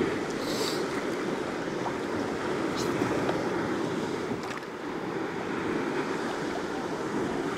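Steady wind buffeting the microphone over the wash of sea water around a kayak, with a couple of short hisses.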